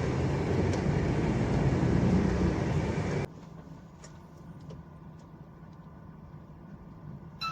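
Road and engine noise of a moving vehicle with a steady low hum, cutting off abruptly about three seconds in to a much quieter background.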